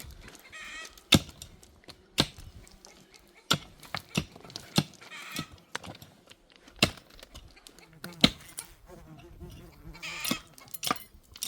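Sharp knocks of wood being struck, roughly one a second, as a wooden canopy frame is worked. A few bleats from livestock sound in between: near the start, in the middle and near the end.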